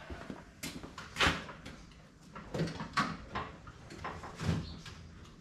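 Steel tool chest drawers sliding open and shut with tools clattering inside as they are rummaged through: a run of uneven knocks and clunks.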